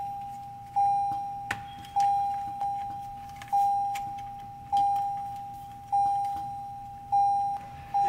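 Toyota Land Cruiser 200 dashboard warning chime dinging over and over: a single-pitched ding about every second and a quarter, each one fading away, about seven in all. A few light clicks of plastic parts being handled fall between the dings.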